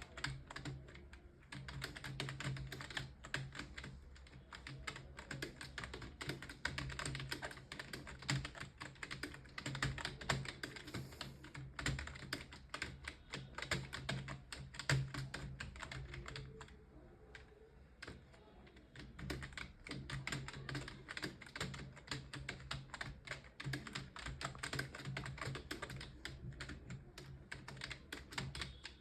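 Computer keyboard typed on fast and continuously, a dense run of keystroke clicks, as in timed typing-test practice. The keystrokes thin out for a couple of seconds about two-thirds of the way in, then pick up again.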